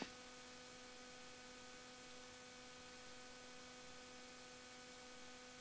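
Near silence: a faint steady electrical hum made of a few even tones, over light hiss.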